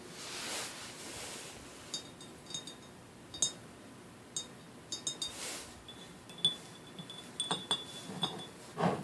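Glass wine glasses being handled: a string of light clinks and taps, many leaving a short high ring. There are a couple of soft rustles between them.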